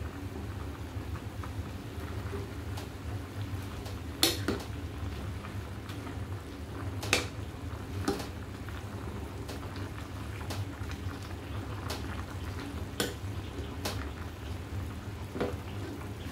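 Chicken tinola broth bubbling in a stainless steel pot on a gas burner. A metal ladle clinks against the pot about six times as water spinach is pushed down into the broth.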